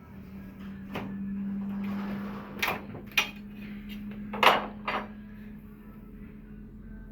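Hand-work sounds of hanging wallpaper: about five short knocks and rustles, the loudest about four and a half seconds in, over a steady low hum.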